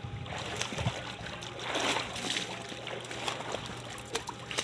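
Pool water splashing and trickling right at the microphone, with many small crackles, swelling about two seconds in: water getting onto the camcorder.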